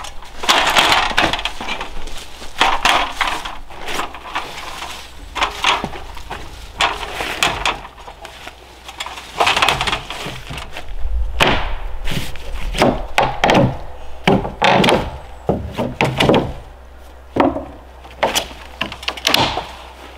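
Irregular knocks, bumps and short scraping rustles of someone climbing a ladder and moving about on a cabin roof, handling sheet material.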